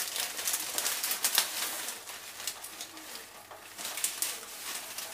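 Water at a rolling boil in a steel pot on a gas stove: an even hiss with irregular crackles and pops of bubbling.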